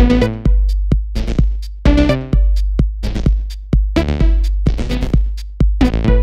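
Electronic rave music: a drum-machine beat under a steady deep sub-bass, with repeated pitched synth stabs that strike and die away quickly.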